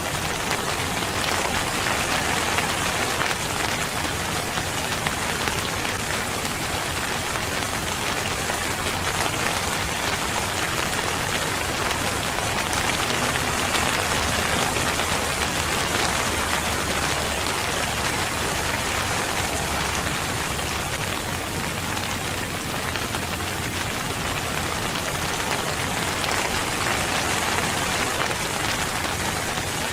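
Steady rain falling on a surface, an even hiss of many drops with no let-up.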